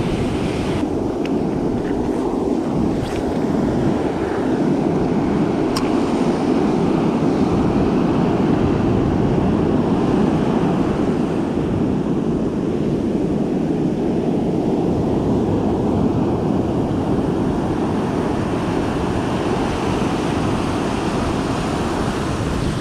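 Ocean surf breaking and washing up the sand, a steady rushing noise with no let-up. A few faint sharp clicks in the first six seconds.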